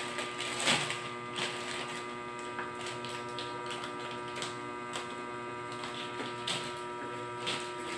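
Steady electrical hum made of several fixed tones, with a few faint scattered clicks and rustles of a parcel being handled.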